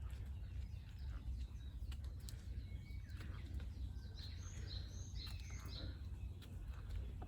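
Forest ambience: small birds chirping, with a cluster of short high calls in the middle and a single brief whistle before them, over a steady low rumble.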